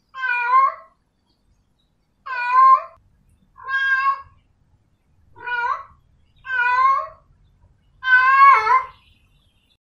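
Domestic cat meowing six times, short calls spaced about a second apart.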